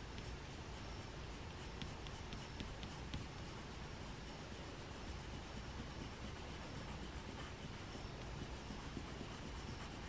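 Graphite pencil shading on paper: faint scratching of repeated strokes.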